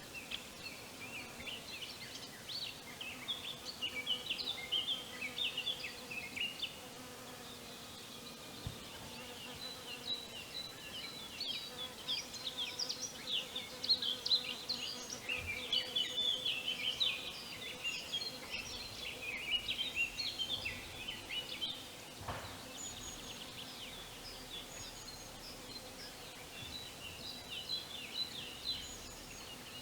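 Spring village ambience: many small birds chirping, short rapid chirps overlapping, busiest in the middle, over a faint steady low hum.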